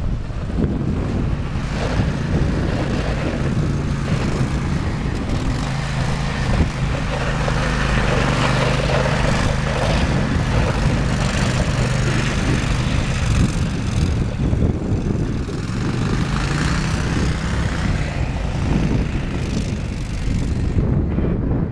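Tracked MAX ATV's engine running under load as the machine is driven through snow, its pitch rising and falling with the throttle.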